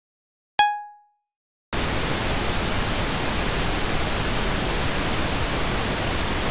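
A single short electronic ping with a clear pitch, dying away quickly, then a steady, loud hiss of static noise that starts suddenly and holds level.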